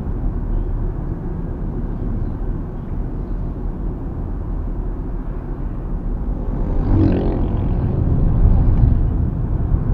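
Steady tyre and road rumble heard from inside the cabin of a Mitsubishi Xpander driving on a fairly smooth road. About seven seconds in, a louder sound with a pitched tone swells and then fades, likely another vehicle passing.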